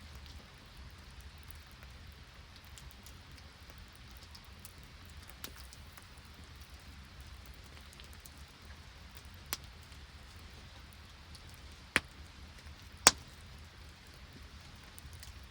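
Steady hiss of rain and sleet falling, with four sharp pops from a wood campfire, the two loudest near the end.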